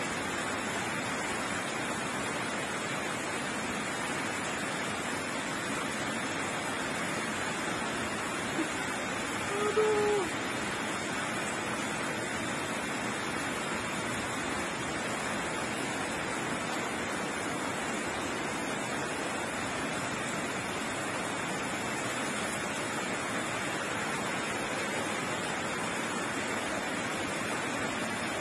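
Heavy rain pouring down steadily, an even, unbroken hiss of the downpour.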